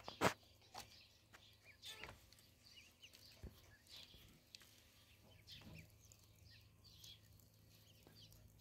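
A flock of ducklings peeping: many short, high calls overlapping at a low level, with a sharp click just after the start.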